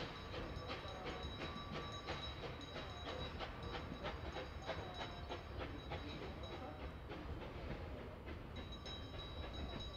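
NA class narrow-gauge steam train pulling away, its wooden carriages clicking and knocking over the rail joints at low speed over a low rumble. The clicking thins out in the last few seconds as the train draws off.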